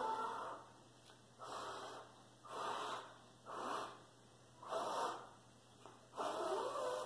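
A person blowing out breath in about six separate breathy puffs, each about half a second long and roughly a second apart.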